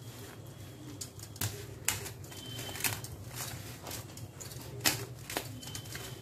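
Hands mixing wheat flour and yeast water in a glass bowl: soft rubbing of the flour with scattered light clicks and taps against the glass.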